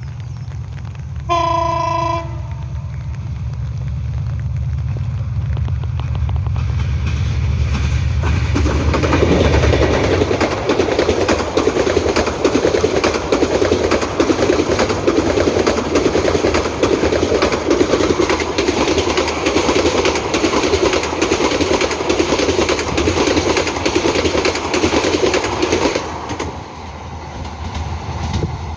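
Express train's diesel locomotive sounds one short horn blast about a second in, then passes at speed with a deep engine rumble. The coaches follow, their wheels clattering over the rail joints for about fifteen seconds, and the noise drops away suddenly near the end as the last car passes.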